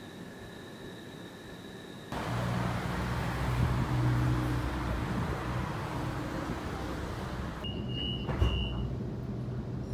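Faint room tone with a thin steady whine for about two seconds. Then road traffic noise with a low hum and a car passing, loudest about four seconds in. Near the end, the duller running noise inside a light rail tram, with a short high beep.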